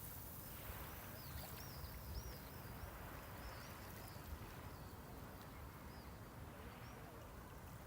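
Small waves washing steadily onto the seashore, with a bird chirping faintly several times in the first half.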